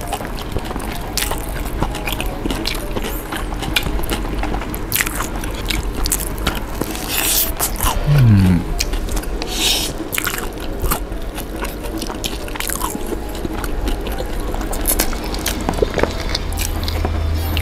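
Close-miked eating sounds: bites into crispy fried chicken and chewing, a steady run of small sharp mouth clicks.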